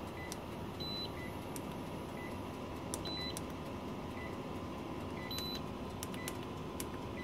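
Electronic fault alarm beeping after the LiFePO4 battery's BMS has tripped on overcurrent. Short high beeps come about once a second, with a longer, higher-pitched beep every two seconds or so, over a faint steady electrical hum.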